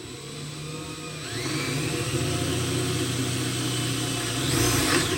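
Power drill with a quarter-inch bit boring through wood, the motor running steadily with a whine that rises about a second in and swells again near the end.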